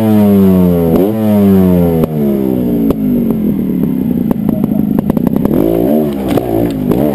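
Trial motorcycle engine blipped sharply twice, each rev falling away over about a second, then running lower with two short rises near the end. Scattered knocks and clatter of the bike working over rock.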